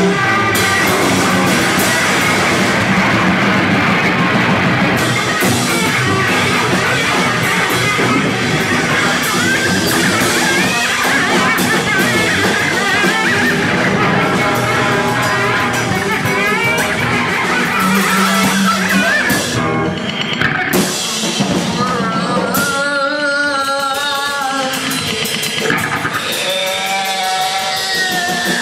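Loud live noise music: a dense, unbroken wall of noise with wavering, wobbling pitched tones, which stand out more plainly in the last third.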